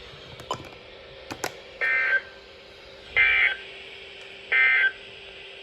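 Emergency Alert System end-of-message signal: three short bursts of warbling SAME digital data tones, about a second and a half apart, marking the end of the weather warning broadcast.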